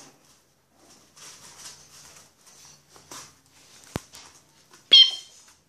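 Bichon frise puppies scampering and scuffling on the floor, with a single click about four seconds in. Near the end comes one short, high-pitched puppy yelp, the loudest sound here.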